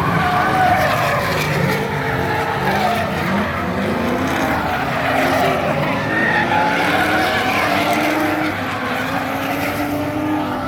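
Drift cars sliding through the course, engines revving up and down repeatedly with tyres squealing and skidding.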